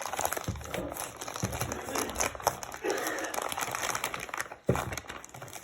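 Packaging crinkling and rustling as it is handled and pulled open, a dense run of small crackles, with a sharper knock about four and a half seconds in.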